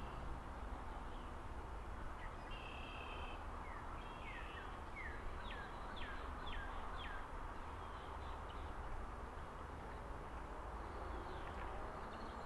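A songbird singing in woodland: a short trill, then a run of quick down-slurred whistles. Steady outdoor background noise runs underneath.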